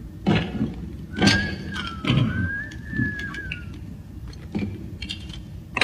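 Cartoon sci-fi sound effects: a string of short thuds, each with a quick falling pitch, spaced about a second apart, under a thin wavering electronic whistle that comes in about a second in and fades before the end.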